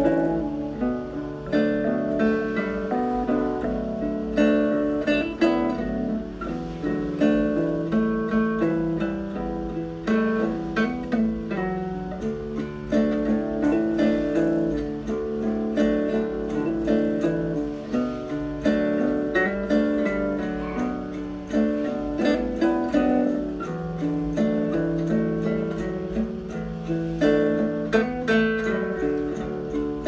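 Background music: a plucked acoustic guitar tune with a quick, steady run of picked notes.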